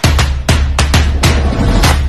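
Electronic background music with a heavy bass-drum beat, about two beats a second.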